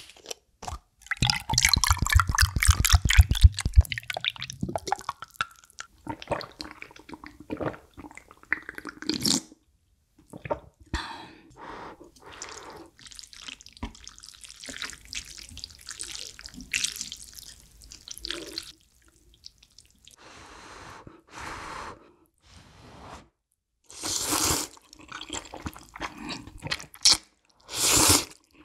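Aloe juice glugging out of a plastic bottle into a glass, the pitch rising as the glass fills. Then wet, spicy ramyun noodles are stirred and lifted with chopsticks, with loud noodle slurps twice near the end.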